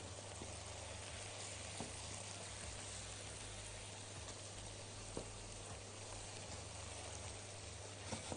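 Egyptian-style sausages with sliced onions, peppers and tomato sizzling faintly in a frying pan as they are stirred with a silicone spatula during a quick sauté, with a few faint knocks.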